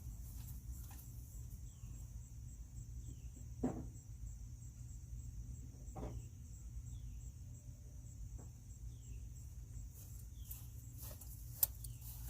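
Low steady hum with a few light clicks and knocks of hand tools being handled, the sharpest near the end. Short falling bird chirps come several times.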